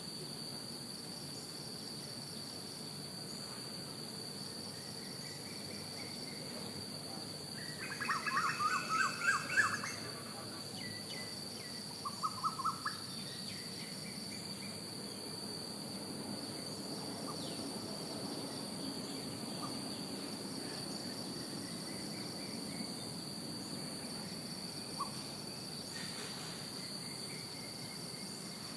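A steady high-pitched insect drone, typical of crickets, runs throughout. About eight seconds in, a small bird gives a quick run of chirps lasting about two seconds, the loudest sound here, with a shorter run a few seconds later and a few faint chirps scattered around them.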